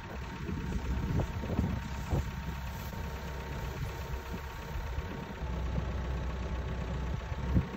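Versatile 150 tractor's diesel engine running steadily while its front loader raises a round straw bale, with a few brief thumps, the loudest near the end.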